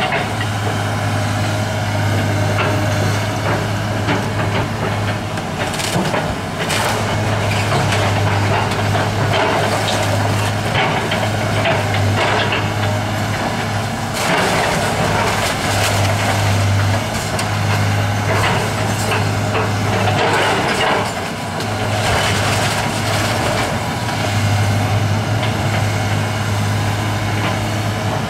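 Caterpillar 315 hydraulic excavator's diesel engine running steadily, its drone swelling and easing as the machine works. Over it, wooden debris cracks, splinters and clatters as the bucket and thumb break up and shift the wreckage, with several sharp crashes.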